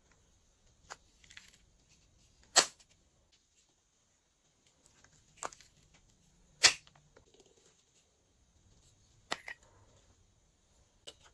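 Glossy slime making sharp air-bubble pops and clicks as it is pressed and handled, about seven of them spread out irregularly, two much louder than the rest.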